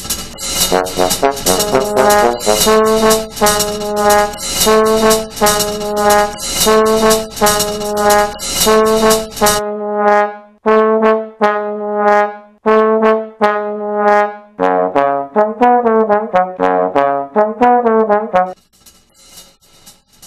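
Jazzy brass music: a horn plays repeated chord-like notes over a steady low bass note, with a percussion beat behind it that drops out about halfway. A quicker run of horn notes follows, and the music stops shortly before the end.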